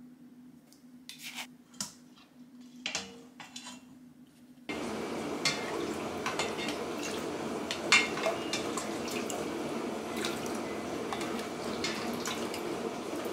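A faint low hum with a few small clicks, then from about five seconds in a steady run of liquid and clinks as soup broth is poured into a ceramic bowl.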